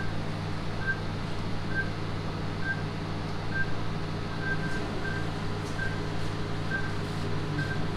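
A patient monitor's short, high beep repeating a little under once a second, in time with the heartbeat, over a steady low hum.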